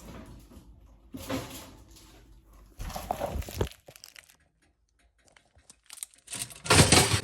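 Plastic wrapping crinkling and tearing in irregular bursts as a frozen pizza is unwrapped, with a short quiet gap and the loudest rustling near the end.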